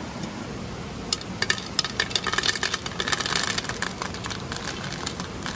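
Dry ring cereal poured from a plastic bag into a metal camping pan: a rapid patter of small hard pieces landing on the metal, starting about a second in, densest in the middle and thinning out near the end.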